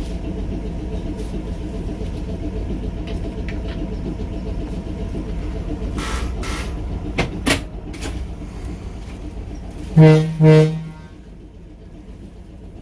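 Cab interior of the 1941 Electroliner electric train: a steady low running rumble, a few sharp clicks about six to seven seconds in, then two short blasts of the train's horn about ten seconds in. After the blasts the rumble is quieter.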